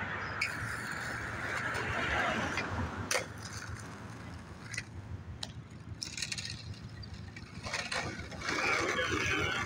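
Skateboard wheels rolling on pavement, with a few sharp clacks of the board in the middle.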